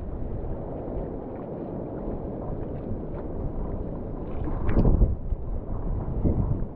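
Wind buffeting the microphone over water rushing past a wingfoil board, with a louder burst about five seconds in.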